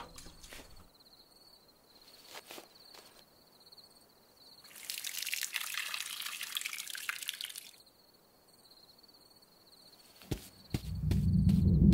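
Sound effects for a night scene: a faint high chirping trill with scattered light clicks, a hissing, rushing shimmer for about three seconds in the middle, and a low drum-like swell that starts near the end.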